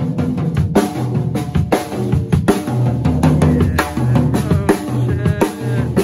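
Acoustic drum kit being played: a steady run of kick, snare and cymbal hits, with low pitched notes sounding underneath.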